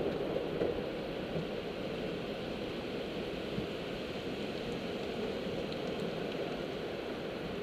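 Water jets of an automatic car wash spraying onto the car's windshield and body, a steady hiss heard from inside the car's cabin.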